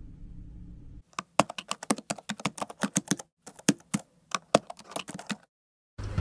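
A low steady hum, cut off about a second in by a run of quick, irregular clicks lasting about four seconds, with a short break in the middle. Music starts right at the end.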